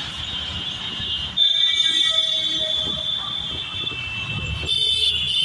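Road traffic rumble with a steady high-pitched tone over it. The tone shifts and gets louder about a second and a half in.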